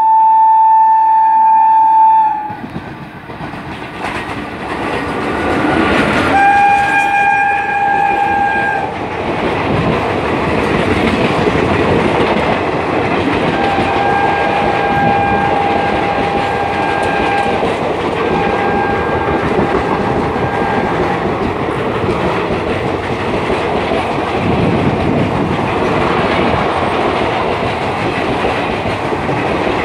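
Indian Railways express train running through a station at speed: its locomotive horn sounds a long blast at the start and again a few seconds later, then two fainter, slightly lower-pitched blasts, while the coaches pass close by with a continuous loud rush and clickety-clack of wheels on rail joints.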